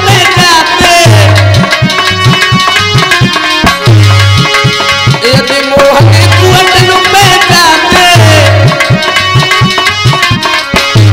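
Devotional bhajan music: a man singing to harmonium over a quick, steady hand-drum rhythm.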